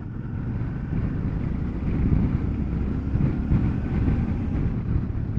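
Motorcycle engine running at road speed, with wind noise on the microphone; it grows somewhat louder over the first couple of seconds.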